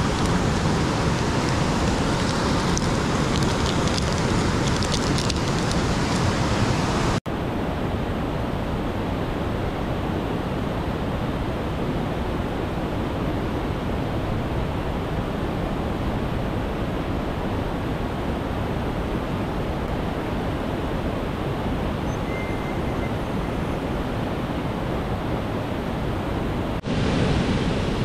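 Steady rushing of a jungle river and waterfall, a constant noise with no rhythm. About seven seconds in it cuts sharply to a duller, less hissy version of the same rush, and it turns brighter again shortly before the end.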